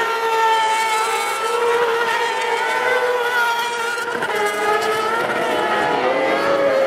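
Several kartcross buggies' motorcycle-derived engines running at high revs, several engine notes overlapping, each rising and falling in pitch as the cars accelerate and lift through the corners.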